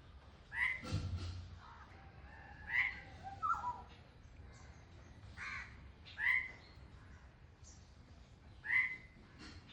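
Crows cawing: about six short, harsh calls at irregular gaps, with a low thump about a second in.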